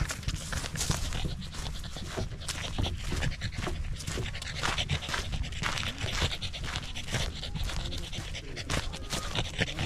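Corgi panting rapidly and steadily as it trots along, over a low steady rumble.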